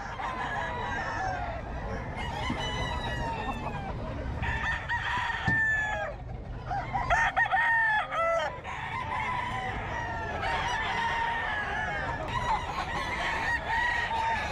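Several gamecocks crowing over and over, their calls overlapping one another, with some clucking in between.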